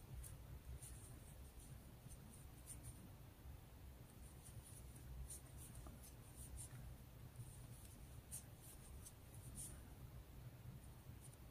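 Faint scratchy rustling of combed cotton yarn drawn over a 3.5 mm metal crochet hook and through the stitches, with scattered soft ticks, over a low steady hum.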